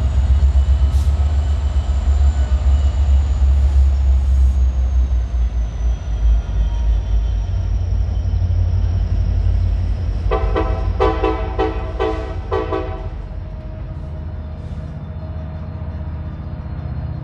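Diesel-electric freight locomotives passing close with a heavy, steady engine rumble. About ten seconds in, a train horn sounds a quick series of about five short blasts, after which the rumble drops away.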